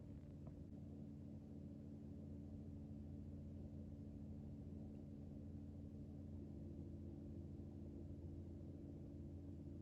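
Faint, steady low hum with a few unchanging tones, like room tone from an appliance or electrical hum.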